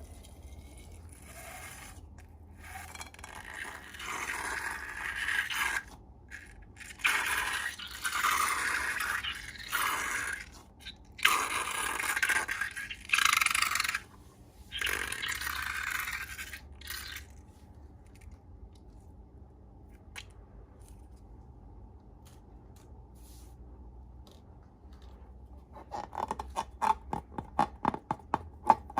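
Slime being mixed with a scraping utensil, in scraping strokes of a second or two each. Near the end comes a quick run of small sticky clicks and pops.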